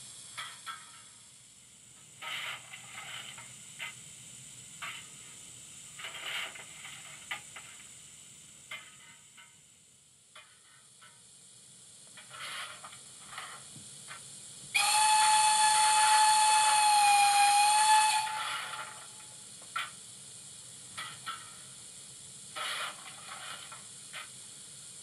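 Digital sound decoder in a 00 gauge model steam tank engine playing stationary steam sounds through its small speaker: a steady hiss with short, irregular hisses and clanks. About fifteen seconds in, one long steam-whistle blast of about three seconds at a steady pitch is by far the loudest sound.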